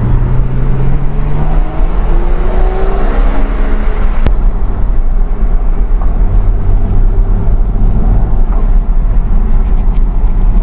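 Porsche Cayman's engine and road noise heard from inside the cabin. The engine note rises over the first few seconds as the car accelerates, then settles to a steadier drone. There is a single sharp click about four seconds in.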